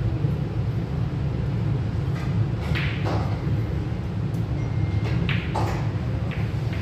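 Pool hall room noise: a steady low hum, with a few sharp clicks of pool balls striking at another table, two pairs of them in the middle and later part.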